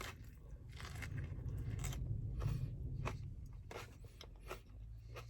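A person biting and chewing crunchy food close to the microphone: irregular crunches over a low steady rumble.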